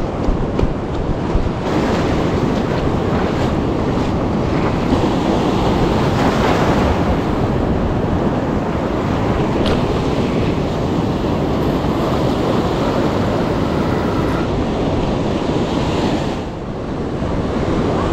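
Ocean surf washing in steadily, with wind buffeting the microphone; the noise dips briefly near the end.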